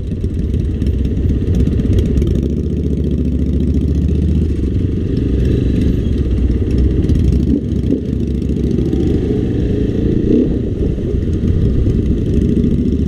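KTM dirt bike engine running at low speed with small throttle changes, heard from on the bike as it filters through slow traffic.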